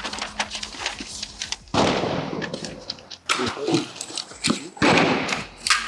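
Irregular gunshots: about half a dozen loud reports, each with a short echo, among fainter cracks.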